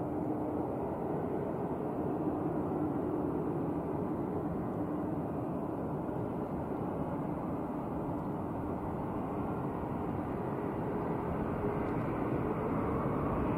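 Boeing 737's jet engines running at taxi idle: a steady rush with a faint hum, growing a little louder near the end.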